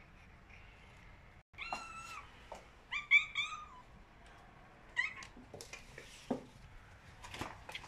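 Cats meowing: one drawn-out meow about two seconds in, a quick run of three or four short meows a second later, and another short meow about halfway through, followed by a few faint clicks and knocks.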